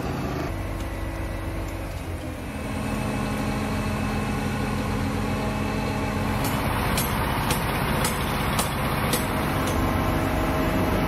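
Mobile crane truck's diesel engine running steadily, its note changing a couple of times as the crane works. From about six seconds in, a handful of sharp knocks.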